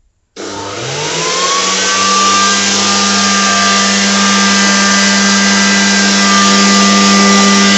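The hovercraft's electric main motor and lift fan switching on about a third of a second in, whining up in pitch over the first second or two, then running steadily as the craft floats on its air cushion.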